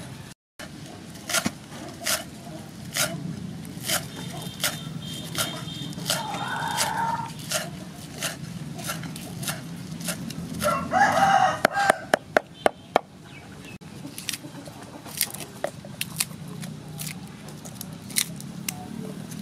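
Cleaver chopping green onions on a wooden chopping block: sharp knocks a bit more than once a second, with a quick flurry of chops about twelve seconds in. A rooster crows twice in the middle.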